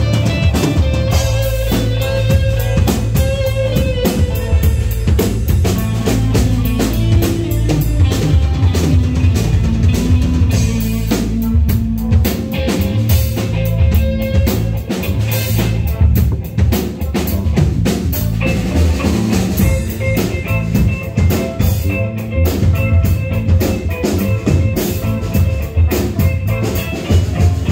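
A live band playing together: a drum kit keeps a steady beat under a Telecaster-style electric guitar, a five-string electric bass and a keyboard.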